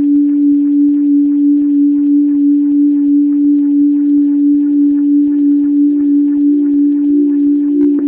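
Background music: a single sustained drone tone that wavers gently and evenly in loudness, about two to three pulses a second, with a second, higher tone joining near the end.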